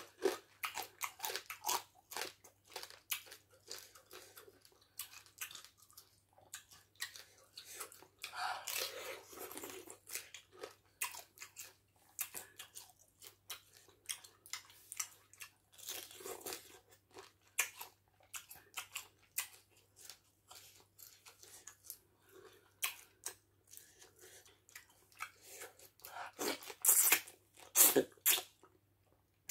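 Close-miked eating of crab in soup: a steady run of short crunches, cracks and wet smacks as crab shell is chewed and the legs are sucked. The loudest wet bites come near the end, as a handful of fufu with soup goes into the mouth.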